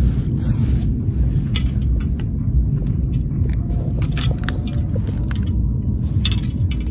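A small hand landing net being swept through shallow water among rocks, with scattered small splashes and clicks, over a steady low rumble.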